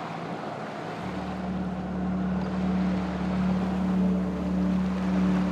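Sailboat under engine, a steady drone with wind and water noise. Soft background music with sustained notes comes in about a second in.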